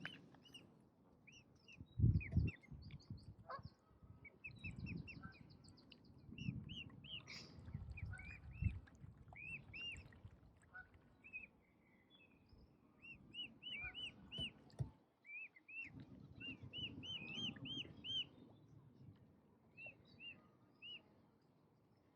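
Birds calling: repeated series of short, high chirps, over intermittent low rumbling.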